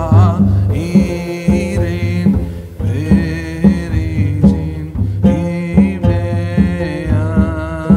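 Background music: a melody over a steady beat with bass and drums.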